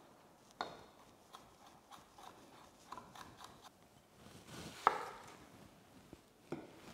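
Chef's knife cutting garlic on a wooden chopping board: irregular light taps and slicing, with a sharper knock about half a second in, the loudest knock near five seconds and another near the end.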